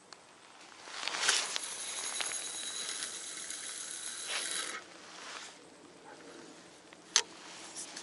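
A surf-casting rod cast with a swish about a second in, then fishing line hissing off the spinning reel's spool with a thin steady whine for about three and a half seconds, fading out; a single sharp click near the end.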